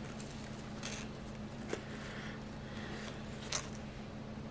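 Faint rustling and crinkling of paper wrapping being pulled off a plant cutting's dry roots: a few soft, scratchy rustles over a low steady hum.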